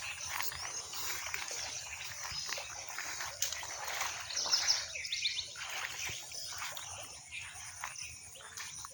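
Light water splashing and trickling, with a few short bird chirps about halfway through.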